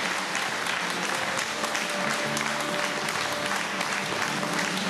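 Theatre audience applauding in a steady mass of clapping. Music plays underneath, coming in about a second and a half in.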